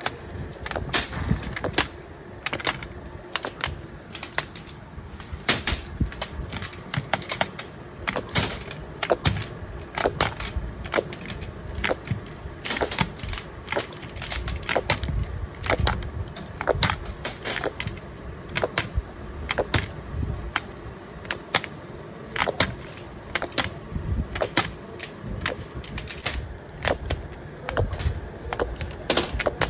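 Irregular sharp clicking and clacking of small hard objects knocking together, a few clicks a second, over a low machine rumble.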